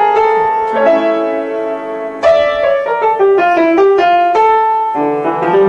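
Piano being played slowly. Held chords change every second or two, and a melody of shorter single notes steps up and down through the middle.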